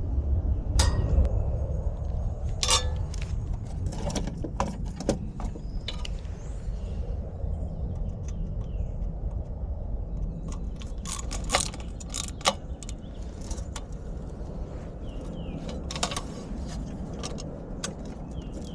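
Metal tools and parts being handled: scattered sharp metallic clicks and clinks, some in quick clusters, over a steady low rumble.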